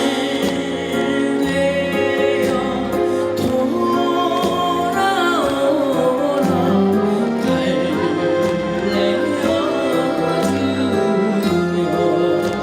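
Korean trot song played live through the stage speakers: a steady backing band track with a singing voice over it.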